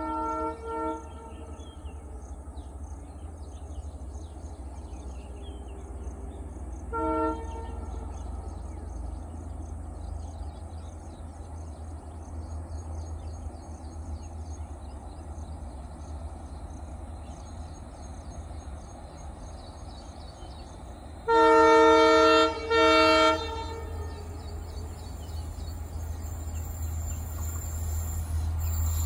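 Locomotive horn of an approaching passenger express, a chord of several steady tones: a blast and a short toot at the start, another short toot about seven seconds in, then two loud longer blasts about 21 seconds in, the second shorter. Under it a low rumble from the approaching train grows louder near the end.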